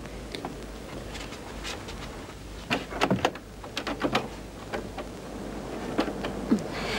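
Irregular knocks and clicks, several close together about three seconds in and a few more later, over a steady low hum.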